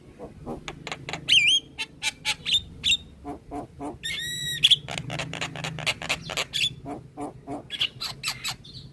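Javan myna singing a rapid, varied chatter of sharp clicks and harsh notes, with a bending whistle early on and a drawn-out buzzy call about four seconds in.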